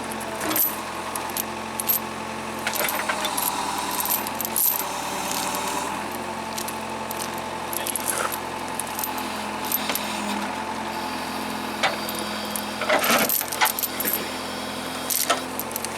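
Heavy diesel machinery running steadily, with repeated metallic clinks and rattles over it while a backhoe tows a rice harvester stuck in mud. The clinking is busiest about 13 seconds in.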